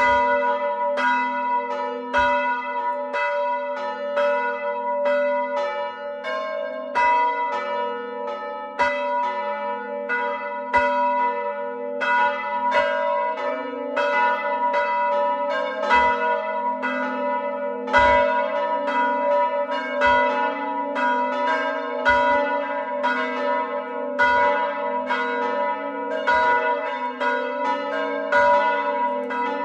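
A set of four hand-rung church bells, the largest an A bell cast by De Poli in 1921 and the other three cast by Paolo Capanni in 1951, ringing in a continuous pattern. The strokes come at about two a second and their tones overlap, with the big bell's deep note sounding under the rest.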